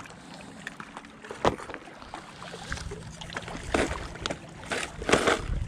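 Small waves lapping against the shore rocks, with scattered clicks and a few short rustles from fishing tackle being handled.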